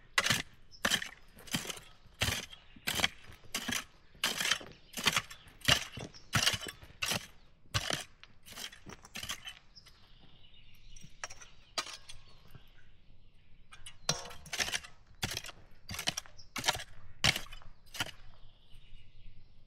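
A hand tool chopping and scraping into stony garden soil to loosen it, in steady strokes a little faster than one a second, with a pause of about four seconds midway before the strokes start again.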